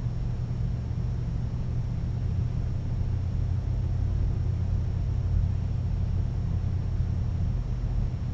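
Steady low rumble of background room noise, with no distinct events.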